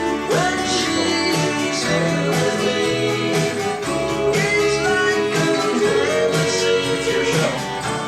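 A rock band's recorded song playing, with guitar over a steady bass line and a sung melody, and a few notes sliding up in pitch.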